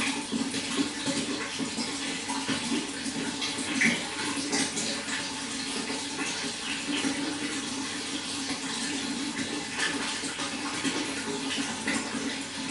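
Running water flowing and splashing steadily, with a constant rush and small irregular splashes throughout.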